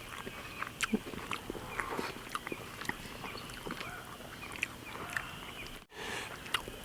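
Faint eating sounds: chewing, lip smacks and small clicks as fried tilapia is eaten by hand, with a brief cut-out near the end.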